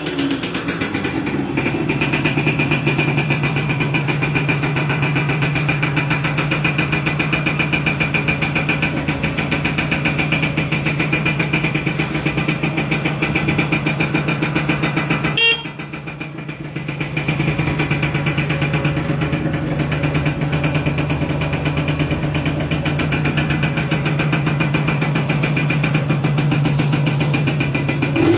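Yamaha Yaz 125 two-stroke single-cylinder motorcycle engine idling steadily, briefly quieter for about two seconds around halfway through.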